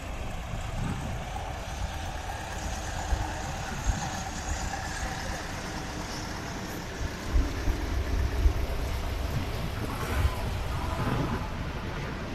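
Concrete mixer truck's diesel engine running steadily, with wind buffeting the microphone in low thumps.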